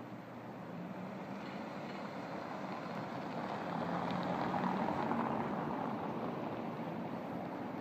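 Car passing close by on a cobblestone street, its tyre and engine noise swelling to a peak about halfway through and then fading, over general street traffic.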